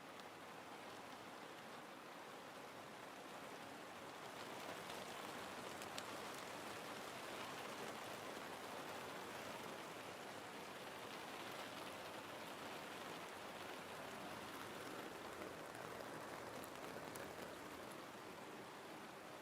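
Steady rain falling, a dense even hiss of many drops with a few sharper drop ticks, swelling slightly a few seconds in.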